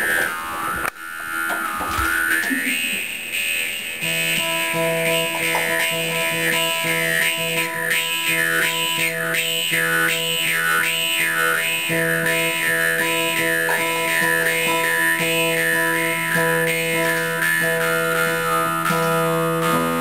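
Music: plucked strings over a low held drone, with a high, wavering whistle-like melody line above them.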